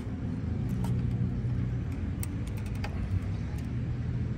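Plastic solar-panel cable connectors being handled, giving light clicks and rattles, a cluster of them about two to three seconds in. A steady low rumble lies underneath.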